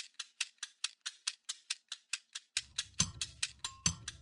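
Background music: a fast, even ticking percussion pattern at about six ticks a second, with a bass beat, drum hits and a few pitched notes coming in about two and a half seconds in.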